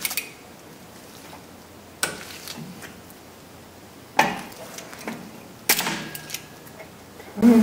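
Sharp metallic clicks and clanks, about five spread a second or two apart, one ringing briefly: drum brake shoes, springs and hardware being handled and fitted onto the steel backing plate with locking pliers.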